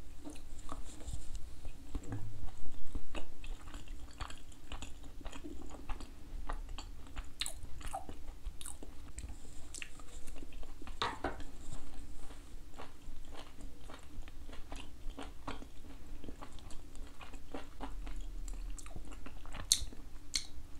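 A person chewing smoked oysters close to the microphone: many small irregular mouth clicks as he eats.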